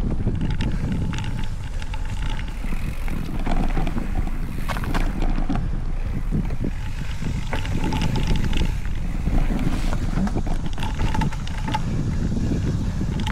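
Specialized Stumpjumper Evo mountain bike being ridden over trail: a steady low rumble and rattle picked up through the handlebar-mounted camera, with wind on the microphone and scattered clicks and knocks.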